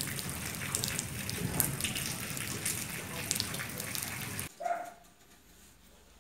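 Rain pattering steadily with scattered drop ticks, cutting off suddenly about four and a half seconds in. Just after, a dog gives one short yip.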